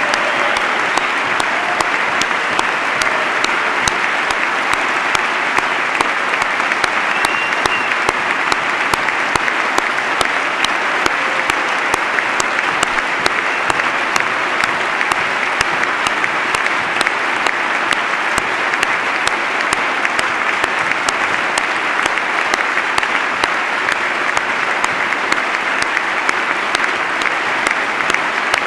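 Large crowd applauding steadily: dense, loud clapping from many hands, unbroken throughout.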